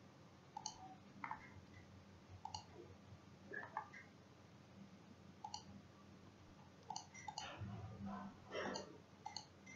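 Faint computer mouse clicks, about ten short separate clicks spread unevenly, over a low room hum.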